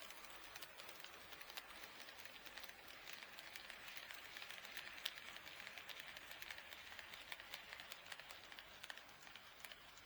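HO scale model train running past on KATO Unitrack: a soft motor and wheel whir with many small clicks from the wheels over the rail joints. It grows louder toward the middle and fades near the end.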